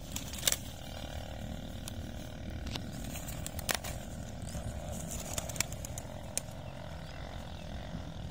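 Wind rumbling on the microphone, with a few sharp clicks or taps scattered through it.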